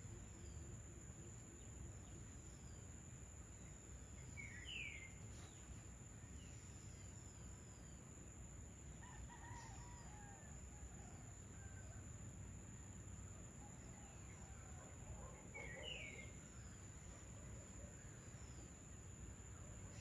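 Faint rural evening ambience: a rooster crows in the distance twice, around the middle and again later, with two short, sharp bird calls and a steady high insect drone behind.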